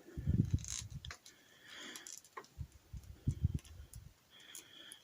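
Small plastic clicks and soft low knocks from a plastic action figure and an accessory being handled and pushed into the figure's hand.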